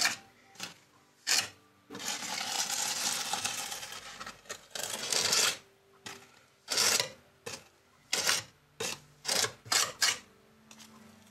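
Small metal trowel scraping and spreading cement paste over a foam base and model railroad track: a string of short scrapes, with two longer spreading strokes about two and four seconds in.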